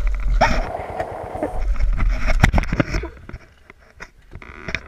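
Yamaha YBR125 motorcycle engine labouring on a steep, rocky dirt climb amid knocks and rattles, then sharp impacts as the bike tips over. The engine sound cuts off about three seconds in, leaving only a few faint knocks and scrapes.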